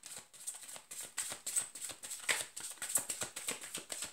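A deck of cards being shuffled by hand: a quick, irregular run of soft clicks and slaps as the cards riffle and knock against each other.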